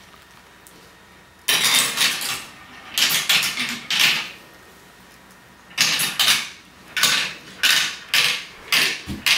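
A marble rattling down a plastic marble-run tower, clattering through its tubes and turns in sharp bursts. Near the end comes a string of short clacks about every half second.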